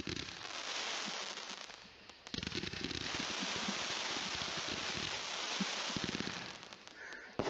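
Fireworks aerial cake (the ammo crate) going off in a store demo video: dense crackling with rapid pops, a short lull about two seconds in, then fading near the end.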